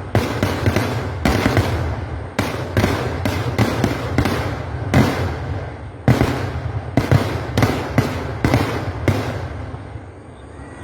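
Kerala temple-festival fireworks: a rapid, irregular barrage of loud explosions, well over a dozen bangs in quick succession over a steady low rumble. The bangs stop about nine seconds in and the rumble fades.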